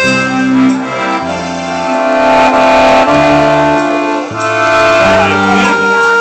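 Accordion playing a slow waltz: held melody notes over a bass that moves to a new note about once a second.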